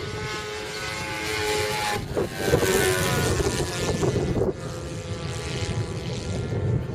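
Radio-controlled Pilatus PC-9 model airplane flying past, its engine and propeller whine loudest for a couple of seconds in the middle and dropping in pitch as it goes by.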